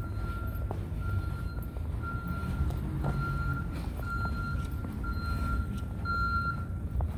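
A vehicle's reversing beeper sounding about once a second, each beep a steady high tone lasting just over half a second, stopping near the end. A constant low rumble runs underneath.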